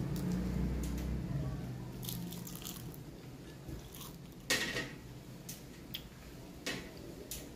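A person eating noodles and seaweed wrap close to the microphone, with scattered crisp crunches and chewing and one louder crunch about halfway through. A low hum fades out in the first second or so.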